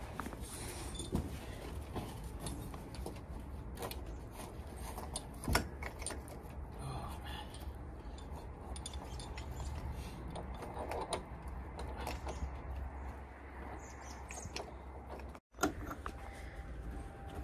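Metal clicks and clanks of a propane fill hose fitting being handled and connected to a van's underbody propane tank, the sharpest about five and a half seconds in, over a steady low rumble.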